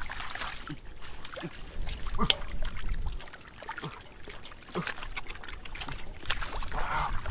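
Shallow muddy water splashing and trickling as fish are grabbed by hand, with the fish flapping and slapping in the water. The loudest splash comes about two seconds in.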